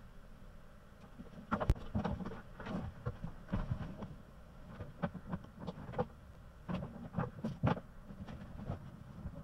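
Irregular knocks, clicks and clunks of hands-on work, one sharper knock about two seconds in.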